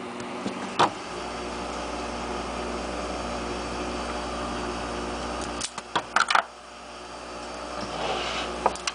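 Heat gun switched on with a click about a second in, its fan running with a steady hum, as used to shrink heat-shrink tubing over a soldered battery lead. A quick clatter of clicks comes about six seconds in, after which the hum carries on a little quieter.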